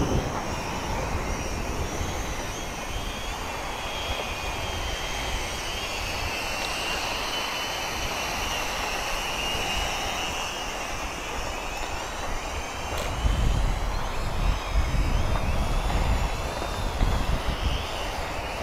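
XK X300 quadcopter's motors and propellers whining, the pitch wavering as it flies. Wind buffets the microphone, in strong gusts in the last few seconds.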